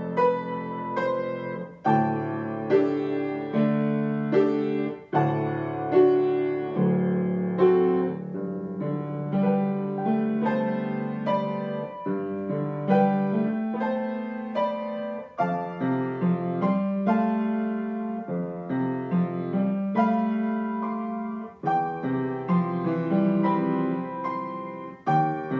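Solo piano playing a flowing passage: ringing low chords under a stream of struck upper notes, with fresh attacks about every second and rising and falling dynamics.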